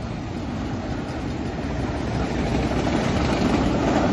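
Autorack freight cars rolling past close by: a steady rumble of wheels on rail, growing a little louder toward the end.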